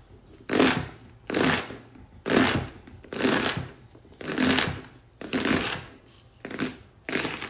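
Chef's knife slicing crosswise through a halved red onion on a cutting board to dice it, about eight short cutting strokes, roughly one a second.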